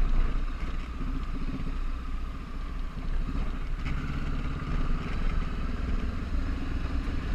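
Honda CB500X parallel-twin engine running steadily under way, with road and wind noise.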